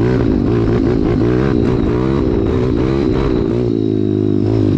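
Pit bike engine revving up and down under riding, its pitch rising and falling continually, then holding a steadier note near the end.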